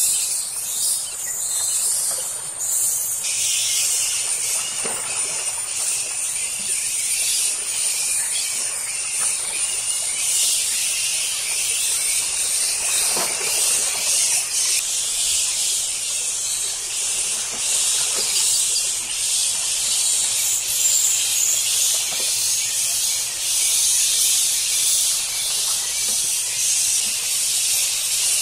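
Dense forest insect chorus: a loud, steady high-pitched hiss that thickens about three seconds in, with a thin high whine over the first several seconds.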